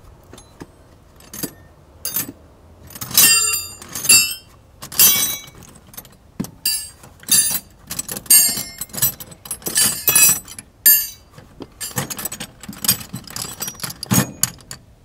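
Metal hand tools clinking and jangling as someone rummages through a soft tool bag, searching for a tool: a quick, irregular string of sharp clinks with a metallic ring.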